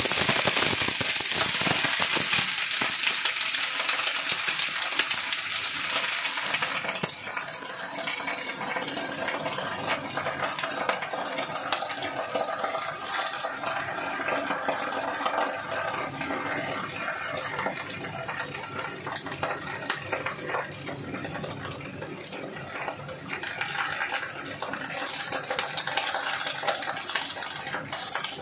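Freshly washed Chinese cabbage hitting hot oil in a stainless steel wok: a sudden loud sizzling hiss that eases after about seven seconds into a steady crackling sizzle, swelling again near the end.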